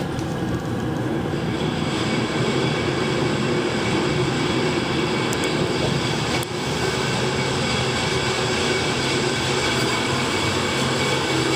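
Kone traction elevator car travelling upward: steady ride and drive noise heard inside the car, with a thin whine that builds about a second in as the car gets up to speed, and a single click midway.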